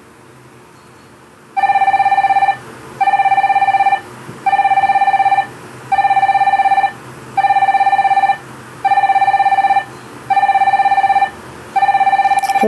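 Phone ringing: a loud electronic ring tone, repeated eight times, each ring about a second long with a short gap between, starting a second and a half in.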